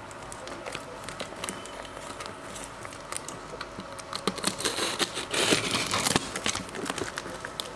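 Plastic parcel wrapping crinkling and crackling as fingers handle it and tear it open, with scattered sharp clicks. It is busiest and loudest from about four to six seconds in.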